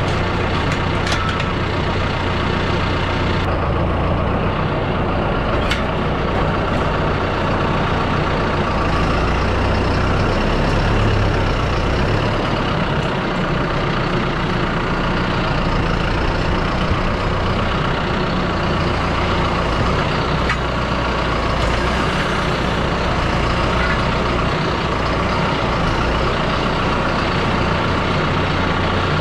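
John Deere 5100R tractor's diesel engine running steadily as the tractor drives, with a constant low hum and a few faint clicks.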